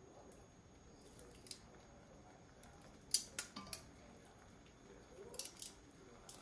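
Metal kitchen tongs clicking against a stainless steel colander as cooked glass noodles are lifted. There is a single click, then three quick clicks about three seconds in, and a few more near the end.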